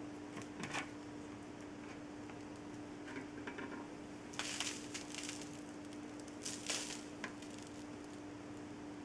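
Faint handling noises: scattered clicks and two short rustling scrapes, one about halfway through and one a couple of seconds later, over a steady low hum.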